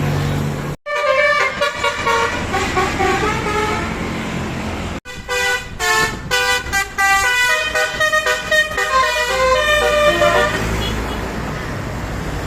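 Telolet bus horns playing quick melodic runs of tones, note after note at changing pitches. The horn sound breaks off abruptly about a second in and again about five seconds in, then starts again.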